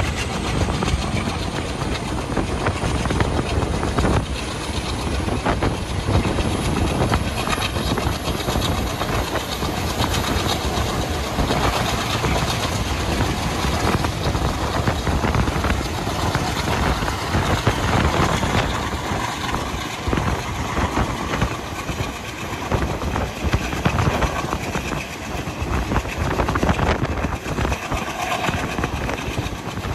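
A moving passenger train hauled by a WDM-3D diesel locomotive: the locomotive's ALCo-type engine is chugging as it works to pull the train, over the rumble and clatter of wheels on the rails. A high whine rises over the first ten seconds or so.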